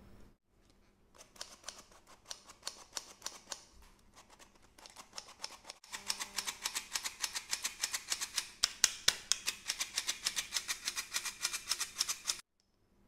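Stainless steel hand flour sifter being worked over a glass bowl, its mechanism clicking rapidly and rhythmically, several clicks a second, as flour is sifted through the mesh. The clicking gets louder about halfway through and stops suddenly near the end.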